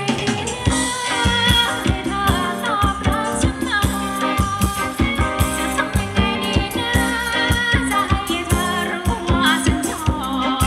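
Thai ramwong dance music from a live band: a singer over a steady drum beat.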